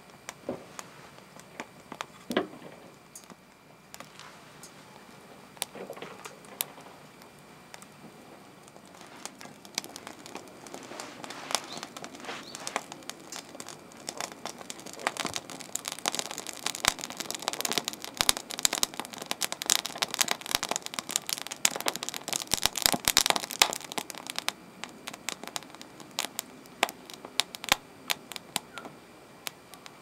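Wood crackling and popping as it burns in a stainless-steel Signstek secondary-combustion camp stove. A steady scatter of sharp snaps grows denser and louder through the middle, then thins out near the end.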